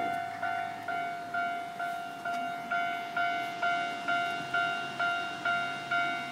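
Japanese railway level-crossing warning bell ringing steadily, about two strikes a second, each a single ringing tone that fades before the next: the alarm that sounds while the lights flash and the barriers are down.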